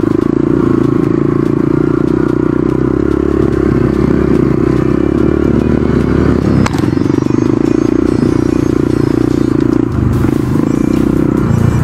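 A four-stroke single-cylinder trail bike engine runs steadily up close under the rider. There is a single sharp knock about two-thirds of the way through, and the engine note drops and wavers near the end.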